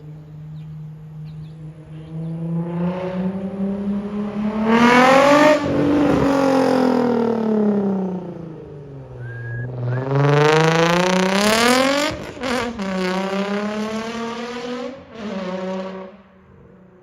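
Nissan 350Z's V6 engine revving up and back down twice, the second climb quicker and ending in a sudden drop in pitch. It then runs at a steadier speed, rises briefly once more and cuts off about a second before the end.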